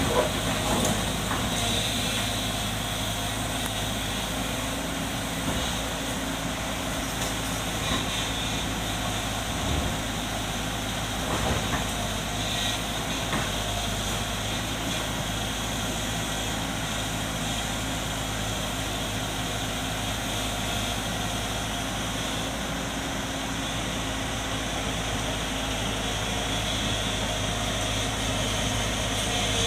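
JCB 140 tracked excavator's diesel engine running steadily with a constant low hum while the boom works, with a few brief knocks about ten and twelve seconds in.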